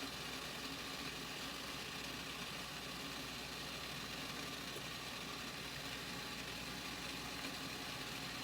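Steady, even hiss from the stovetop steamer as the rice-flour layers steam over boiling water.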